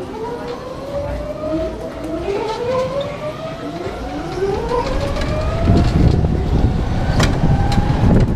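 Electric go-kart motors whining as the karts pull away, several rising whines overlapping. From about halfway a rough low rumble of wind on the microphone and tyres builds as the kart gathers speed, with a single sharp click near the end.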